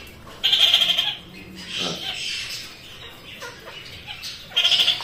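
A pet parrot giving harsh, buzzy squawks: a long one about half a second in and a shorter one near the end.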